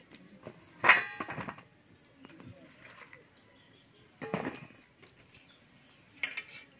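Chopped vegetables being washed by hand in a steel bowl of water: a sharp clank of the steel bowl with a short ring about a second in, then quieter sloshing, with two more clatters of wet vegetables and bowl near the middle and near the end.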